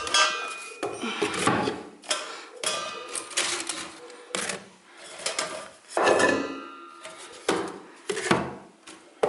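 Irregular clicks and knocks from the doors, knobs and parts of a toy play kitchen being opened, shut and handled.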